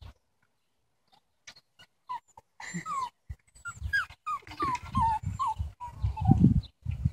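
A dog whining and whimpering in a run of short, high, falling cries, about two to three a second, starting about two seconds in. It is frustrated at a fence gap it can no longer squeeze through. Low rumbling thumps run under the cries, loudest about six seconds in.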